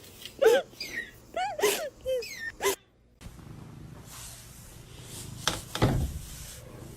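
A pet's short, squeaky cries, several in a row, which stop about three seconds in. After that comes a steady background hiss with a couple of thumps near six seconds.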